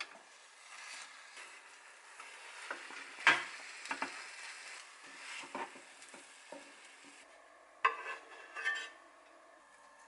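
Egg mixture sizzling in a square non-stick omelette pan while a wooden spatula rolls the omelette, knocking against the pan several times around the middle. Near the end the sizzling stops and a few louder clacks follow.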